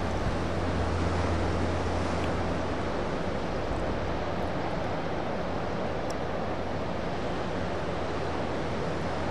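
A steady wash of ocean surf breaking on the reef below, mixed with wind noise on the microphone. The low wind rumble is heaviest in the first couple of seconds and then eases.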